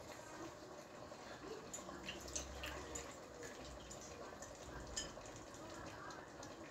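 Stainless steel pot of chopped tomatoes cooking on an electric hob: a faint simmering hiss with a few small pops.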